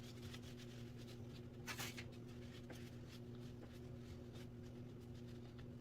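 Faint rubbing and scratching of hands cleaning a box fan part, with one short, louder hissing scrape about two seconds in, over a steady low hum.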